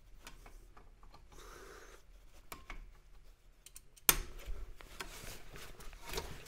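Screwdriver working the rear drum-brake adjuster, with faint scattered clicks and scraping. About four seconds in there is a sharp knock, and then the brake drum is spun by hand, giving a steady rubbing hiss as the shoes are set to the slightest drag.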